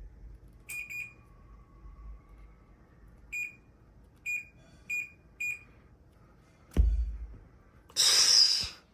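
Short single-pitched electronic beeps, six of them at uneven intervals, then a dull thud and a brief loud hiss near the end.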